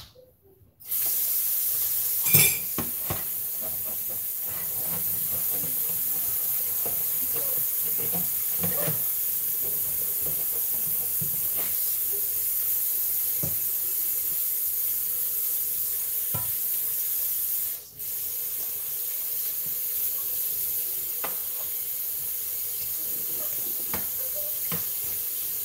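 Kitchen tap running water into a sink while a pot is washed, a steady hiss that starts suddenly about a second in, with scattered knocks of the pot. It cuts out briefly about two-thirds of the way through and then comes back.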